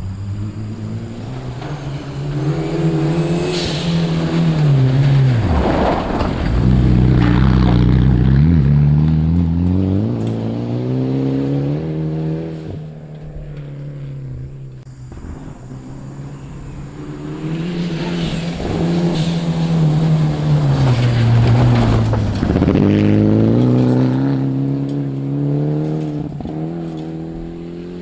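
Two rally cars pass at speed on a gravel stage, one after the other. Each engine note climbs as the car approaches, drops sharply as it goes by, and climbs again as it revs away and fades.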